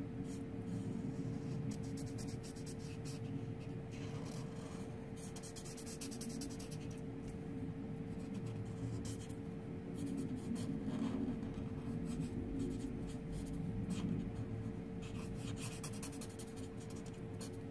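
Copic alcohol marker nib stroking across cardstock in short, repeated scratchy strokes, colouring in a stamped image, over a steady background hum.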